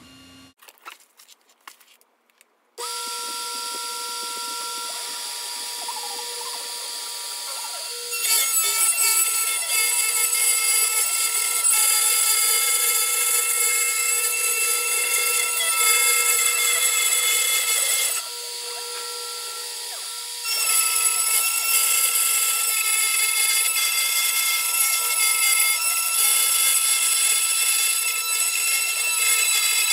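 Dremel rotary tool on a homemade CNC machine. Its motor starts about three seconds in with a steady high whine. Then the engraving bit cuts into particleboard, adding a louder rough cutting noise that drops away for a couple of seconds about eighteen seconds in and then resumes.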